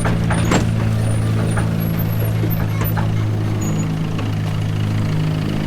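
Engine running with a steady low hum, its pitch shifting slightly partway through, with a few sharp clicks in the first second.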